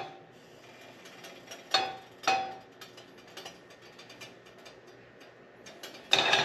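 Nonstick frying pan being tilted and moved about on an electric coil burner to spread the oil: two metal clanks about half a second apart, each with a short ring, light ticking and scraping in between, and a louder clatter near the end.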